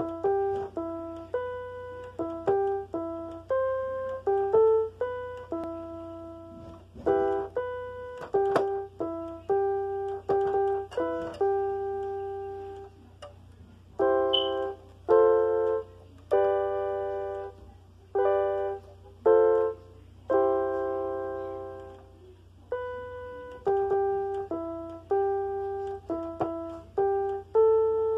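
Piano played by a beginner: a slow, simple self-composed melody of mostly single notes, each struck and left to fade, with a couple of short pauses.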